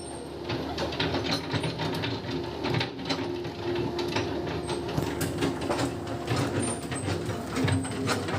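A machine running with a steady hum and a fast, irregular clicking clatter.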